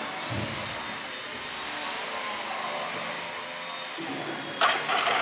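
Small electric RC aerobatic plane's motor and propeller whirring as it flies, its pitch gliding up and down with the throttle. A short, loud clatter comes near the end.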